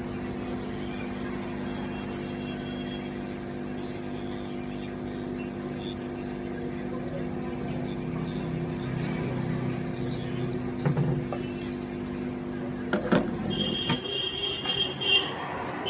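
Hot-air rework station blowing steadily while desoldering an IC from a circuit board, its fan hum cutting off about 13 seconds in. A few sharp clicks and a short high tone follow near the end.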